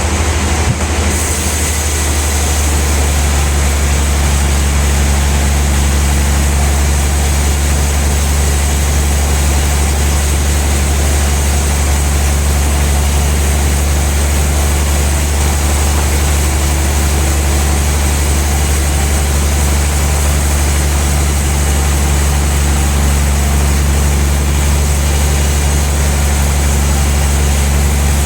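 Sawmill machinery running with a steady, loud low drone that does not change.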